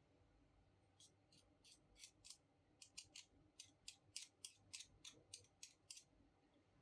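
A faint, quick run of about eighteen sharp, thin clicks or snips, starting about a second in and going on for about five seconds at an uneven three or four a second.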